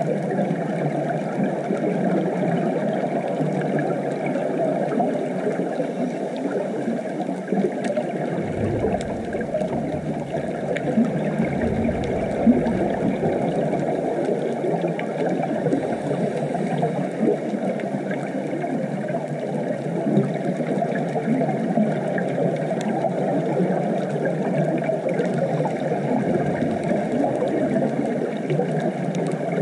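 Steady underwater reef ambience picked up by a GoPro in its waterproof housing: a constant hiss-like wash with faint scattered clicks. A low rumble joins from about 8 to 15 seconds in.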